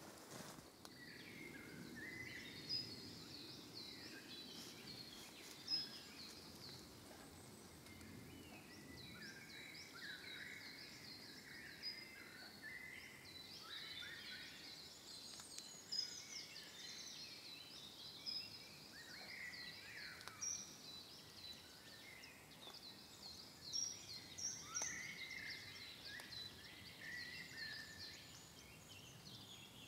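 Songbirds singing in woodland, a faint, dense, overlapping chorus of short chirps and trills, with a few louder notes standing out here and there.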